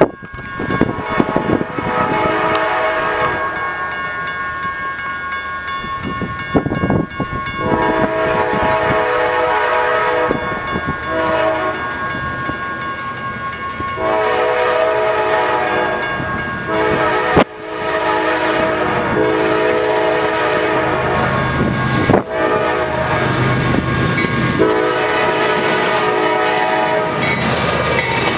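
An approaching CSX freight train sounding its locomotive's chime air horn in about six blasts, each a few seconds long with short pauses between. Under the horn runs the low rumble of the diesel locomotives and wheels on the rail, which grows near the end as the lead units pass.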